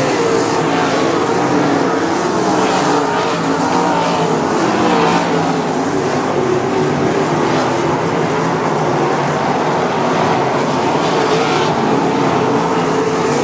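A field of 305 winged sprint cars racing, their V8 engines at high revs. Several engines sound at once, their pitches wavering as the cars circle and pass.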